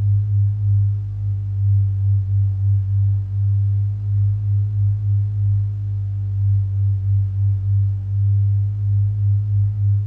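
Deep electronic hum: a steady low drone that swells and dips about twice a second, with faint higher overtones.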